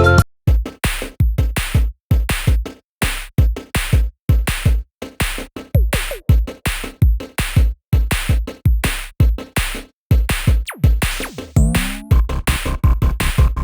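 Electronic background music with a heavy drum-machine beat, cut into short choppy hits about two a second with brief silences between them.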